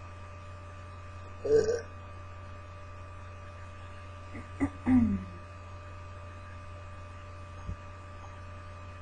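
Steady electrical mains hum, with a few short, soft sounds from the woman; the loudest is a brief low burp falling in pitch about five seconds in.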